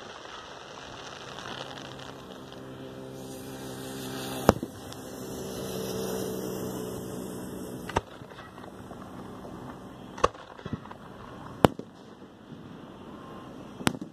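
Aerial firework shells bursting overhead: about six sharp bangs at irregular intervals, the loudest about four and a half seconds in. A low steady hum with several tones runs in the middle, between the bangs.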